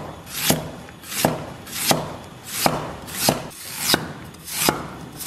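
Chinese cleaver slicing fresh ginger into thin slices on a wooden chopping block, in an even rhythm of about seven strokes. Each stroke is a short scrape through the root ending in a tap of the blade on the board.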